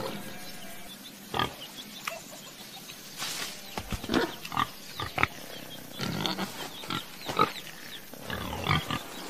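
Pigs grunting in many short, separate bursts, clustering more thickly in the second half.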